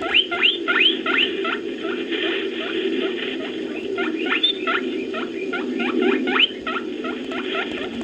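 Made-up creature sound effect built from edited rabbit and bear-cub recordings: a run of quick high squeaks, each rising in pitch, over a steady low rumble.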